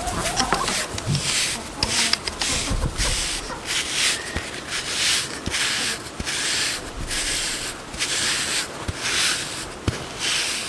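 Stiff-bristled plastic grooming brush stroked repeatedly through a goat's coarse coat, a scratchy brushing in quick strokes of about two a second.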